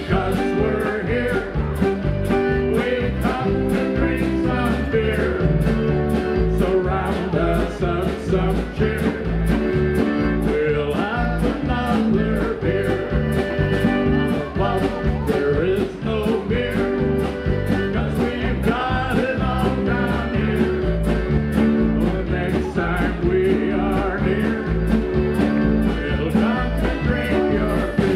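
Live polka band: an accordion and drums keep a steady beat of about two strokes a second while a man sings into the microphone.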